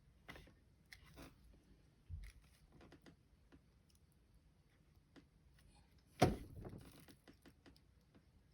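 Craft supplies handled on a tabletop: scattered light clicks and taps, a low knock about two seconds in, and a louder thump about six seconds in.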